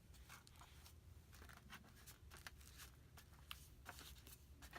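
Faint, scattered small clicks and light scraping of the aluminium bottom case being handled and fitted back onto a MacBook Pro.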